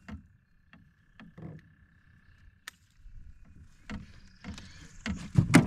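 Scattered light clicks and knocks from handling gear in a small fishing boat, with a sharper, louder knock about five seconds in.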